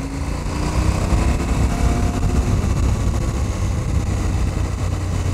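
KTM 790 Adventure's parallel-twin engine pulling under way, its revs climbing gently over the first couple of seconds and then holding steady, with a rush of riding wind over the microphone.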